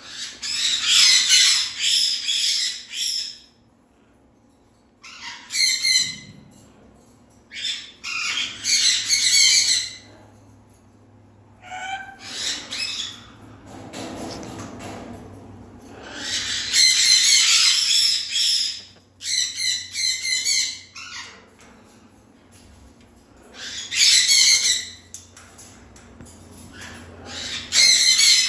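A parrot squawking in repeated harsh bouts of one to three seconds, with short quiet gaps between them.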